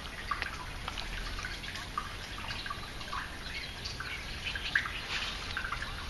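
Water dripping and lapping around a hooked crucian carp as it is drawn in to the bank, with many short, high drips and ticks scattered throughout.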